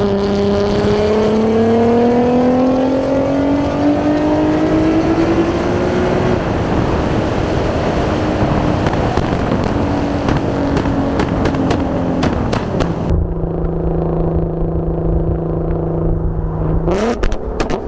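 Infiniti Q50's 3.7-litre VQ37 V6 through a Tomei exhaust with test pipes, pulling hard with its note rising steadily for several seconds, then letting off into a run of pops and crackles from its flame-map tune. About 13 seconds in it settles to a steady lower note, then a quick rev near the end sets off another burst of cracks.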